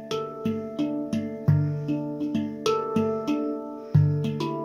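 Taopan Mini steel handpan in a Dimelodia Extended tuning, played with the fingers: a flowing run of struck notes, about three a second, each ringing on, with deep bass notes about one and a half seconds in and again near the end, the latter the loudest strike.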